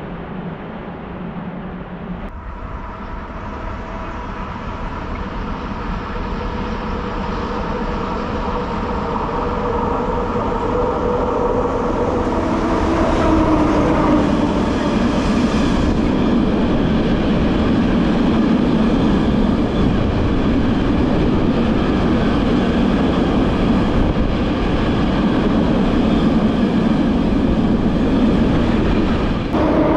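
An SŽ Class 363 electric locomotive approaches and passes, its steady whine growing louder and dropping in pitch as it goes by about halfway through. Freight wagons then roll past with a loud, continuous rumble.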